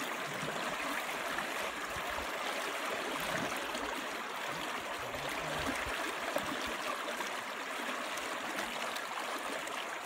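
Fast-flowing shallow river running over riffles, a steady even rush of water.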